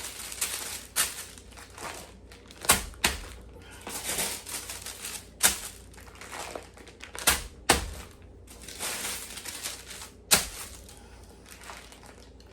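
Sheets of deli paper rustling and crinkling as bags of marinated chicken are handled and stacked, with several sharp knocks spaced through the rustling.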